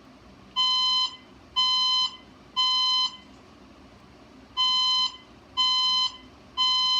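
Fire alarm sounding the temporal-three evacuation signal: three beeps about half a second long, one a second, then a pause and three more. The tone is pitched around 1 kHz with a buzzy edge.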